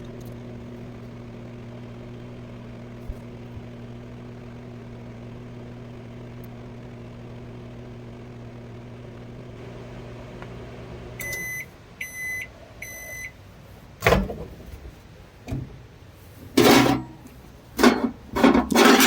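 Microwave oven running with a steady electrical hum and no arcing from the fork inside. About eleven seconds in the hum stops and the oven gives three beeps, signalling the end of the cycle. Several loud clunks and clatters follow.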